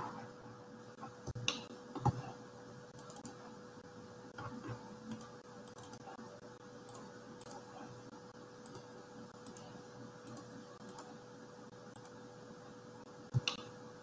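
Faint, scattered computer mouse clicks, a few at a time, over a faint steady hum.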